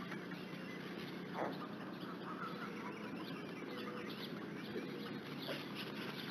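Birds calling in the background over a steady low hum, with one short plopping knock about one and a half seconds in.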